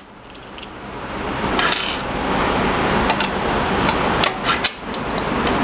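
Plastic hardware bag rustling as small nuts and screws are handled, with light clicks and clinks of the small metal parts.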